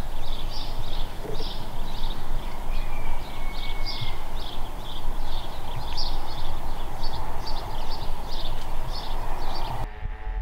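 Small birds chirping, many short high calls several times a second, over a steady rushing background noise.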